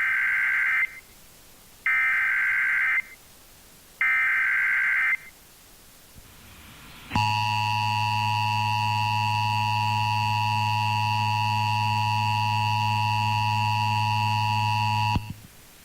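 Emergency Alert System data header: three bursts of warbling digital tones, each about a second long, about two seconds apart. After that comes the EAS two-tone attention signal, a steady harsh chord lasting about eight seconds before it cuts off, heard through an FM radio broadcast.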